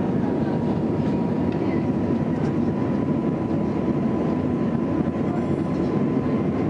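Airbus jet airliner's engines running with a steady, dense rumble and a faint steady tone above it.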